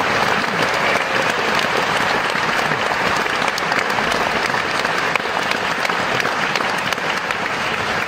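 Theatre audience applauding, a dense, steady clatter of many hands clapping.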